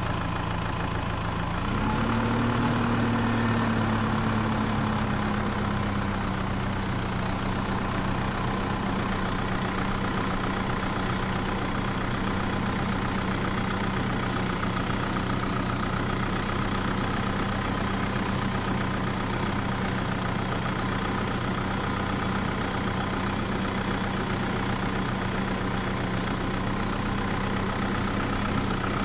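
Engine running at idle, rising briefly in pitch and level about two seconds in, then easing back to a steady idle hum.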